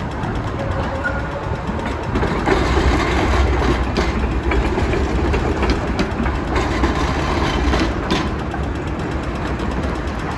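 Street traffic with trams passing: a steady low rumble of a tram running along the street-track and cars driving by, swelling about two and a half seconds in. A few sharp clicks sound as wheels cross the track junctions in the intersection.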